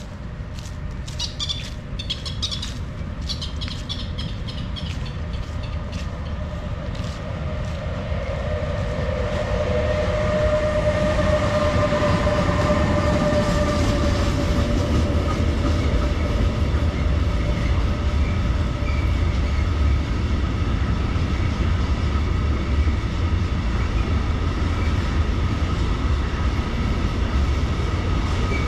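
Low, steady rumble of a large vehicle. It grows louder over the first ten seconds or so and then holds, with a steady whine on top. There is a run of short high clicks in the first few seconds.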